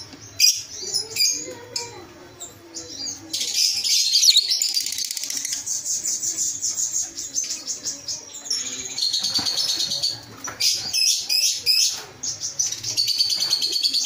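Many caged lovebirds chattering at once: a dense run of rapid, high-pitched chirps that grows busier about three seconds in.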